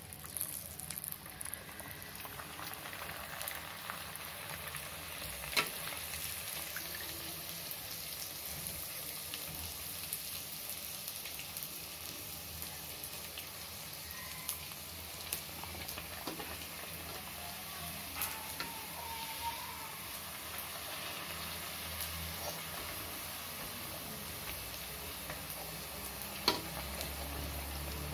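Hot oil sizzling steadily as stuffed pooris deep-fry in a kadhai, the sizzle starting as a poori is slipped into the oil. A few sharp clicks sound above it, the loudest near the end.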